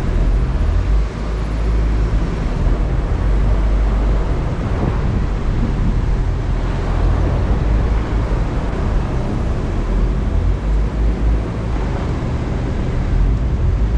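GMC Canyon pickup driving off-road in four-wheel drive: a steady, loud low rumble of engine and tyres working over soft ground, wavering in loudness.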